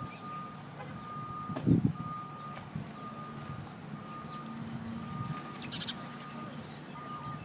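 Vehicle backup alarm beeping steadily, one half-second beep about every second, with small birds chirping faintly. A single dull thump about a second and a half in.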